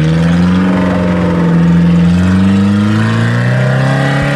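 A 4x4 off-road vehicle's engine running steadily, its pitch rising a little through the middle and then easing back.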